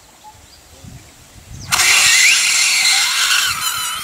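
Gas bursting out of a bloated dead elephant's cut belly: a sudden loud hissing rush starts about one and a half seconds in and keeps going, with thin squealing whistles rising and falling through it.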